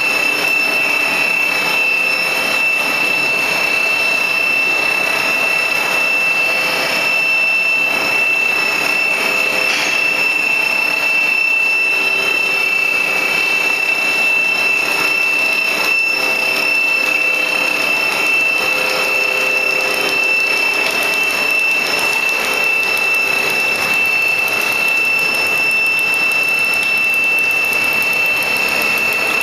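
Plastic sheet-making machine running steadily: an even machine noise with a constant high-pitched whine over it.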